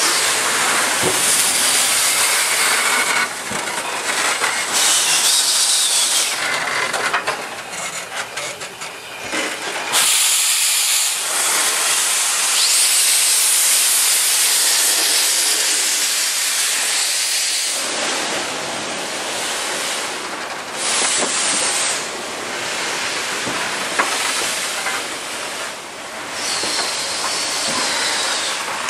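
East Broad Top steam locomotive venting steam: a loud, continuous hissing that swells and fades, with a sudden louder rush of steam about ten seconds in.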